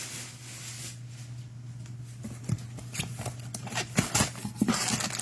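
Trading-card packs being handled and set down on a table: irregular light clicks and taps that start about two seconds in, over a steady low hum.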